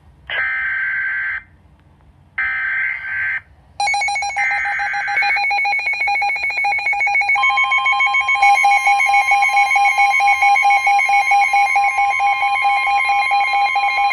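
Emergency alert data header: three screechy digital bursts of about a second each, a second apart. A pulsing alarm tone sets in during the third burst, and a steady high alert tone joins it about halfway through, marking the start of a tornado warning.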